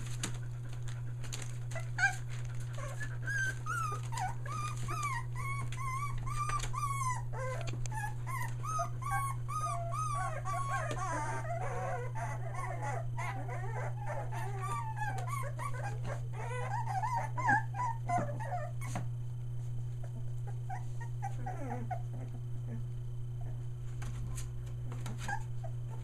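Three-week-old Australian Shepherd puppies whimpering and squealing. Many short, high, wavering cries overlap thickly through the middle and thin out toward the end, with scattered scratchy clicks over a steady low hum.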